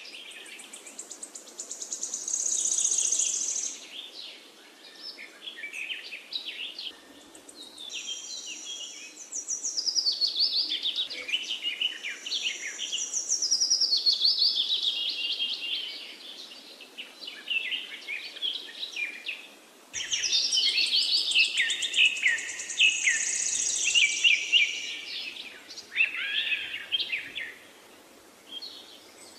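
A chorus of several birds singing, with rapid chirps, trills and high whistles over a faint outdoor hiss. The song dies down and then starts again abruptly about two-thirds of the way through.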